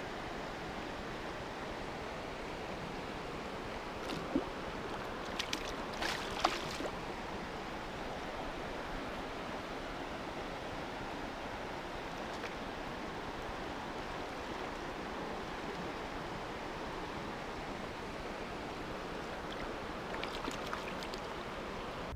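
Steady rush of a flowing mountain stream, with a few brief clicks and knocks around four to six seconds in and again near the end.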